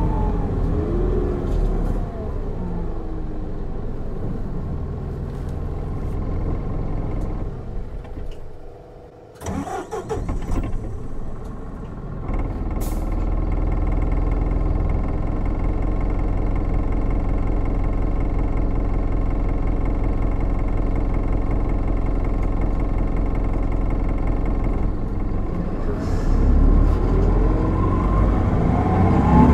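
Isuzu Erga city bus's 4HK1-TCS turbo-diesel four-cylinder, heard from inside the cabin. The engine note falls as the bus slows. After a brief lull it runs steadily at idle, then rises again near the end as the bus pulls away under acceleration through its six-speed automatic.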